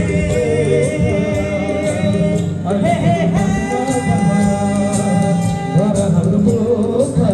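Nepali-language song: a singer holds long, drawn-out notes over a steady instrumental accompaniment with a regular beat.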